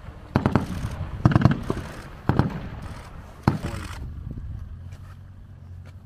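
Gunfire: sharp bangs in quick clusters through the first four seconds, then stopping, leaving a low steady rumble.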